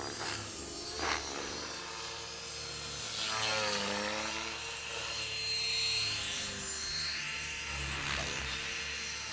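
Align T-Rex 450 Pro electric RC helicopter in flight: its motor and rotors whine continuously, the pitch wavering up and down as it manoeuvres.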